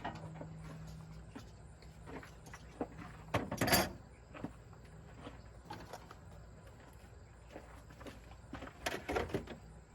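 Scattered knocks, rustles and footsteps of someone moving about and handling things, with one louder clatter about three and a half seconds in and a few more knocks near the end. No engine cranking or running is heard.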